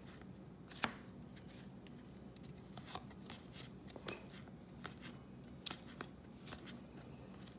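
Baseball cards being flipped through by hand: faint scattered ticks and slides of card stock, with a sharper snap about a second in and another near six seconds.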